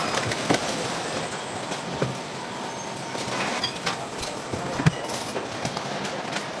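Car assembly line noise: a steady mechanical rumble of plant machinery with scattered metallic clanks and knocks, the sharpest one about five seconds in.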